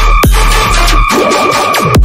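Hybrid trap and dubstep electronic music: heavy sub-bass drops out about halfway through, under a held high synth tone. A sharp falling pitch sweep comes shortly after the start.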